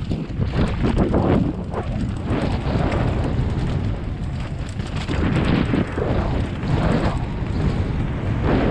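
Mountain bike descending a dry dirt and rock trail: wind buffeting the microphone over the rumble of knobby tyres on the ground, rising and falling in uneven surges with the bumps and speed.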